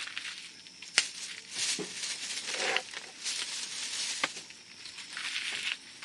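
Wood campfire burning, crackling with a couple of sharp pops and stretches of hissing and rustling noise.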